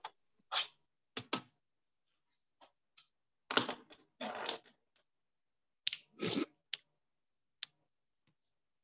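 Handling noise: a scatter of sharp clicks and short rustles with silent gaps between them, the longest rustles a little past the middle.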